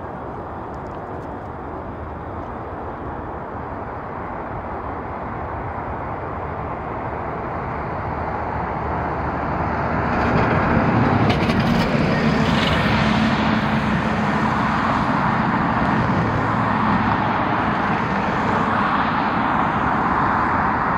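Jet airliner's engines: a broad rumble that grows steadily louder, swells sharply about ten seconds in and stays loud, with a low steady hum underneath.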